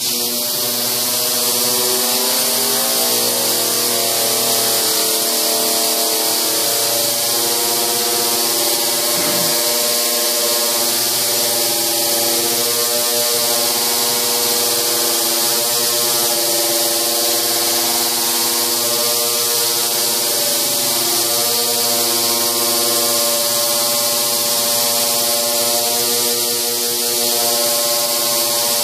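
Industrial ultrasonic parts-cleaning tank switched on and running with an aluminum engine block submerged. It makes a loud, steady drone of many stacked tones over a hiss from the agitated detergent solution, and it starts abruptly.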